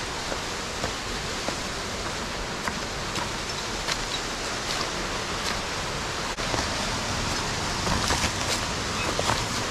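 Steady rush of mountain stream water, with scattered small splashes on top. The sound steps up slightly a little after six seconds in.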